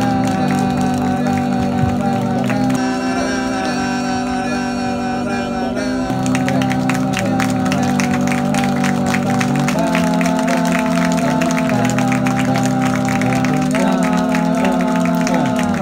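Music: held chords that change every few seconds, with a quick, steady beat joining about six seconds in.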